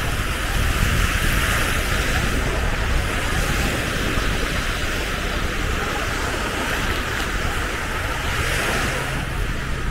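Wind buffeting the microphone over a steady wash of sea surf.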